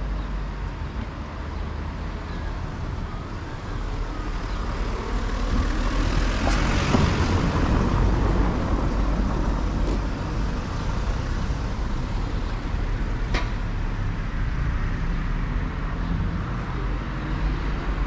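Town street traffic: a passing vehicle swells and fades about a third of the way through, over a steady low rumble. A single sharp tick about three-quarters of the way through.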